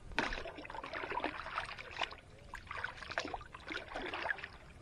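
River water splashing and sloshing as a stainless steel bowl is dipped in, scooped and emptied over the side of a wooden boat, in a run of irregular splashes.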